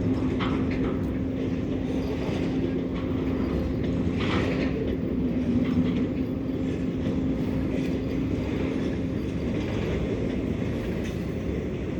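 Steady low mechanical rumble with a constant hum that fades out about nine seconds in.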